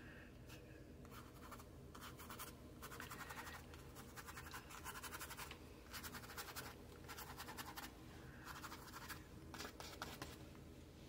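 A watercolour brush scratching and scrubbing across watercolour paper. It is faint and comes in about eight short bouts of strokes, the brush working in fur texture.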